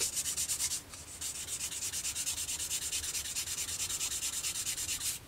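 Fine sponge sanding stick rubbed back and forth on a plastic kit part, a rapid, even series of hissing strokes with a short break about a second in. It is the polishing stage, smoothing out scratches left by coarser sanding where ejector-pin marks were removed.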